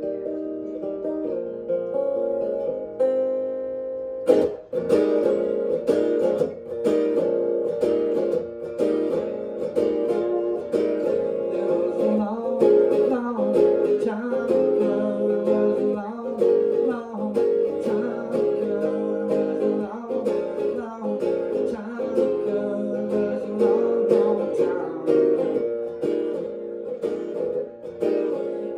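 Steel-string acoustic guitar played in a blues song: a few seconds of ringing notes, then a sharp strum about four seconds in and steady rhythmic strumming.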